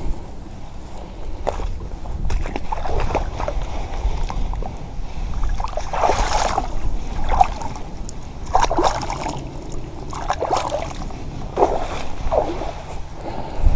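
Wind rumbling on the microphone, with a series of short, irregular splashes and sloshes of water.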